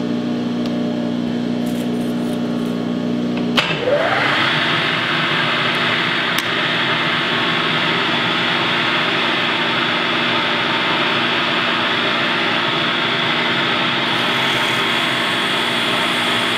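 Milling machine spindle running while center-drilling and countersinking holes in a metal hub. About three and a half seconds in there is a sharp click, the pitch sweeps up, and the low steady hum gives way to a brighter, higher whine with a hiss that holds steady.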